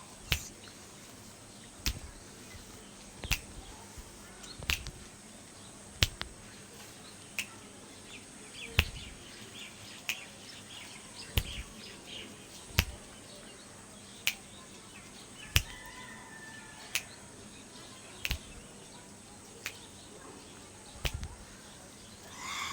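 Sharp finger snaps during an ASMR head massage, one snap about every second and a half in a steady rhythm, about sixteen in all.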